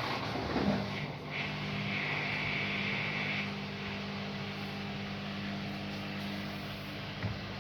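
Haier HW100-1411N washing machine running with a steady motor hum made of several low tones, with a faint higher whine for a second or two and a small click near the end.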